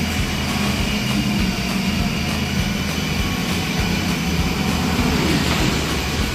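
Electric motor and gearbox of a child's battery-powered ride-on toy scooter whirring steadily as it drives, with its plastic wheels rolling on a tiled floor.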